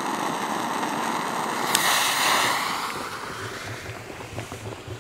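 Steady hiss of a butane jet-torch lighter's flame held to a firecracker fuse. The hiss swells with a click about two seconds in, then fades, followed by regular footsteps on sand.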